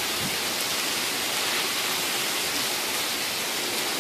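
Heavy rain pouring down, a steady, even hiss.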